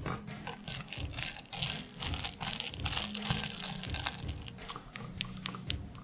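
Silicone spatula stirring white chocolate pieces in a glass bowl over hot water: quick scraping and clicking of the pieces against the glass, thinning to a few scattered clicks near the end.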